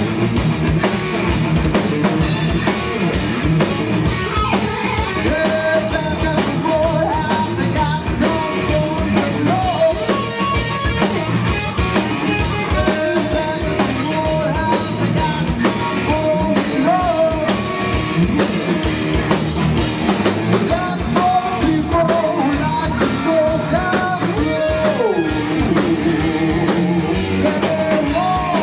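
Rock band playing live: electric guitars, bass and a drum kit keeping a steady beat under a male lead vocal.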